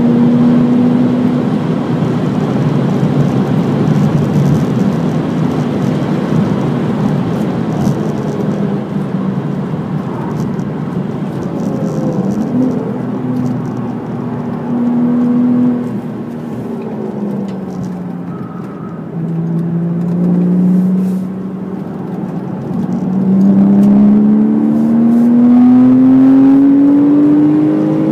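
Porsche Cayman S flat-six engine heard from inside the cabin at speed, over road and wind noise. It holds steady near 4,800 rpm in fifth, falls and wavers as the car slows through the middle, then climbs steadily under full throttle in third toward about 6,400 rpm near the end.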